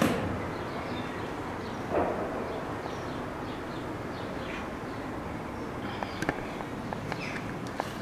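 Someone climbing an iron ladder: a few knocks and clanks, a louder knock about two seconds in and small clicks near the end, over a steady background hiss.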